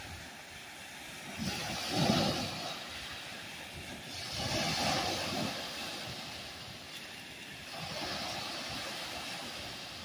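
Small lake waves breaking and washing up a sandy shore, swelling and fading three times.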